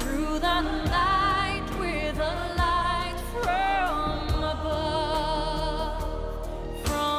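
Background music: a singer holding long notes with vibrato over a slow, low drum beat.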